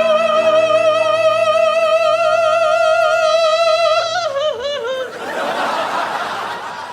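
A falsetto soprano voice holds a long, high operatic final note with wide vibrato over sustained accompaniment. Near the four-second mark it drops into a short wavering run down. About five seconds in, audience laughter and crowd noise begin.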